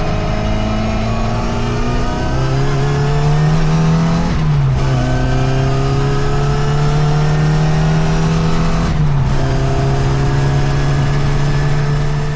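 Car engine accelerating through the gears: the engine note climbs slowly, drops with a gear change about four seconds in and again about nine seconds in, then climbs again.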